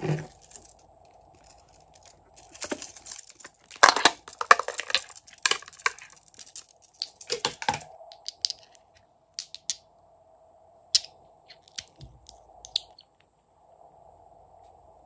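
Close handling noises: a run of crackling, crinkling sounds lasting several seconds, loudest about four seconds in. Scattered light clicks and taps follow as glass nail polish bottles are handled and a cap is twisted open.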